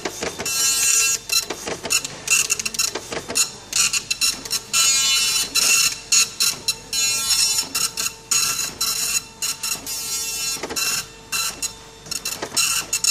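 Epson LQ-300 24-pin dot-matrix printer printing: the print head rattles across the paper in repeated passes of about a second, with short pauses between them. It stops near the end.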